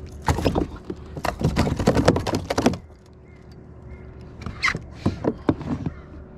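Quick run of knocks and clatters on a plastic kayak hull during the first three seconds, then a few scattered clicks, as a landed flathead is handled and unhooked with a lip grip and pliers.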